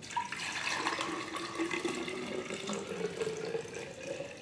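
Cold-brewed coffee being poured into a glass pitcher: a steady stream of liquid with a faint tone that rises slowly as it goes.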